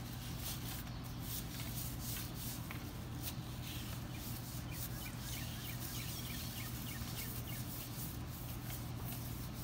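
A wet, stiff-bristled wheel brush scrubs a painted car wheel coated in foaming wheel cleaner. Quick repeated brushing strokes rasp against the spokes over a steady low hum.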